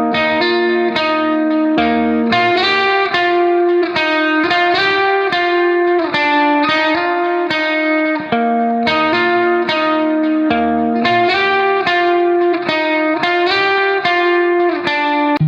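Background music: a guitar plays a melody of plucked notes in steady succession.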